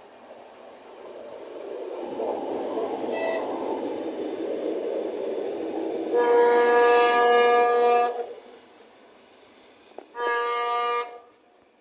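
Russian diesel locomotive drawing near, its engine and running noise swelling, then sounding its horn in a greeting: one long blast of about two seconds, then a shorter blast about two seconds later.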